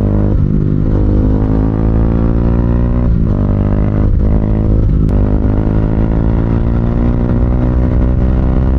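Bajaj Dominar motorcycle's single-cylinder engine running through a Two Brothers slip-on exhaust while riding. Its pitch climbs slowly, with brief dips about three, four and five seconds in.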